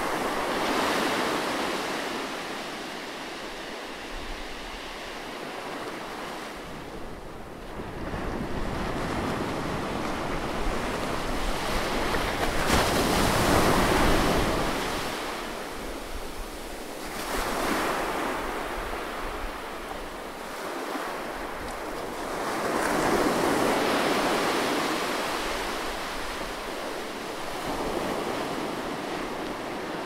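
Ocean surf: small waves breaking and washing up a sandy beach, the noise swelling and fading every several seconds, loudest about halfway through.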